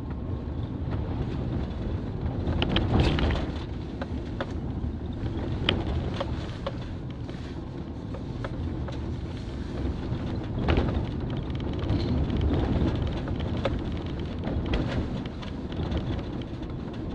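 Car driving on a dirt road, heard from inside the car: a steady low rumble of tyres and road noise with scattered sharp clicks and knocks and a few louder jolts.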